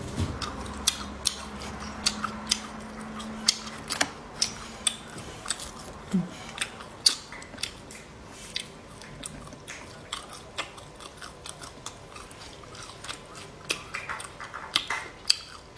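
Eating air-dried chicken neck: many sharp, irregular crunches and cracks as the dry meat and small bones are torn apart by hand and chewed.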